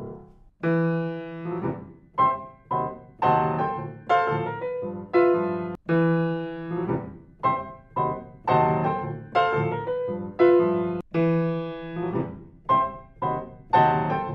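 Grand piano played solo, a short chordal passage of struck chords that ring and fade between strikes, starting after a brief gap. The recording cuts between stereo pairs of condenser microphones (AKG C414XLII, DPA 4011C) on the same passage.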